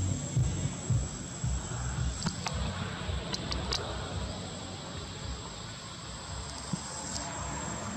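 Outdoor ambience of insects making a steady high-pitched drone, with low rumbling thumps in the first second and a few faint clicks around the middle.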